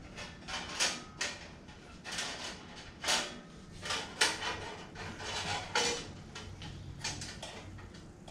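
A 3/8-inch steel bandsaw blade being fitted over a bandsaw's wheels: a string of irregular metallic clinks, rattles and short scrapes as the blade flexes and knocks against the wheels and the steel frame.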